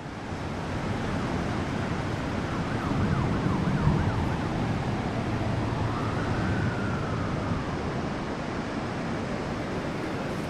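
City traffic noise with an emergency vehicle's siren. The siren gives a fast warbling yelp about three seconds in, then one slow rise and fall in pitch a few seconds later.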